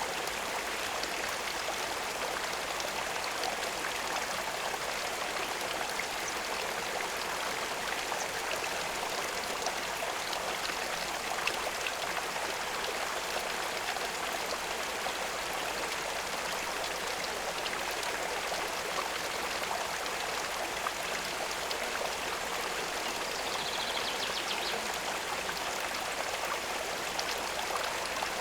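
Running water with a steady, even rush that does not let up.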